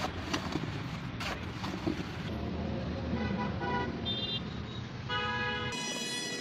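Vehicle horns tooting over a steady traffic rumble: a few short toots in the middle, then a longer horn blast near the end. There are a few sharp clicks in the first second and a half.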